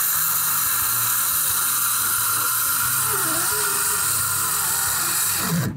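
Ryobi circular saw running as it cuts through a sheet of plywood: a steady high-pitched whine and hiss that stops abruptly near the end.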